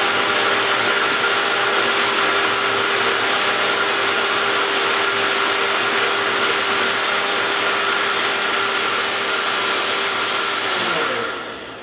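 Countertop blender running steadily, pureeing a thin liquid marinade of dressing, vinegar and spices, then switched off and winding down about a second before the end.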